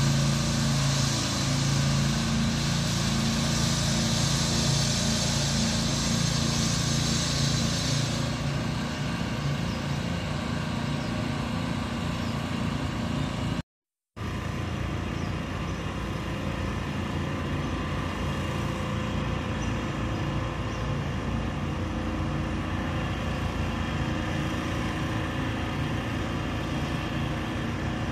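Small engine of a road-works machine running steadily with a droning hum. A higher hiss drops away about a third of the way in, and the sound cuts out for a split second about halfway, then carries on slightly quieter.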